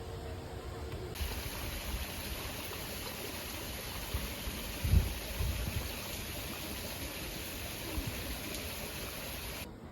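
Steady rush of flowing water, as from a stream, with a few low thumps about halfway through.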